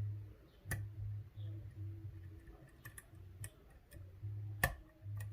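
Lock pick and tension wrench clicking inside a Medeco D11 biaxial pin-tumbler cylinder as the pins are reset after being overset. There are two sharp clicks, one under a second in and one near the end, with fainter ticks between them, over a low pulsing hum.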